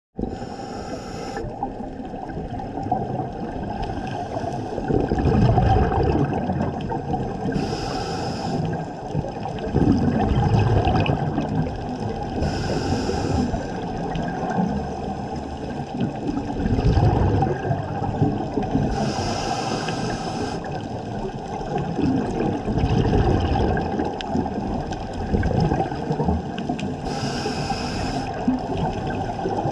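Scuba regulator breathing heard underwater through a camera housing: a hissing inhalation about every five to six seconds, with low bubbling gushes of exhaled air in between, over a steady muffled water noise.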